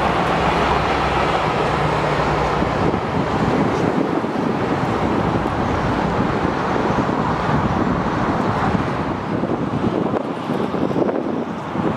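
Steady road traffic and rail noise with wind on the microphone. In the first few seconds there is a low steady drone, the diesel engine of a Renfe 311 shunting locomotive running past.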